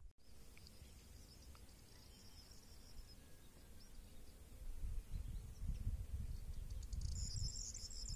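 Wind buffeting the microphone in gusts, stronger from about five seconds in, with faint high chirping.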